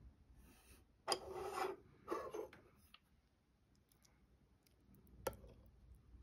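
Two short scratchy sounds about a second apart, then a single sharp click of a metal spoon against the ramen bowl a little after five seconds in.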